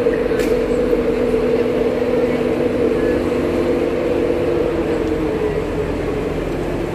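Train idling at the platform: a steady, loud drone made of several held low tones, the highest of which fades out about five and a half seconds in.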